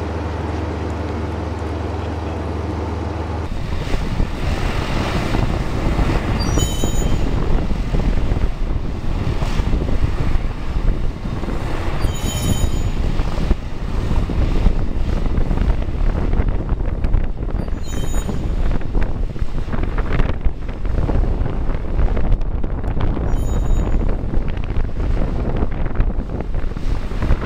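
Railway track tamping machine working on the line: a dense, heavy mechanical rattle and drone of its vibrating tamping units and engine, with a brief high squeal about every five or six seconds as it steps from sleeper to sleeper. It begins about three seconds in, after a steady hum from a different shot.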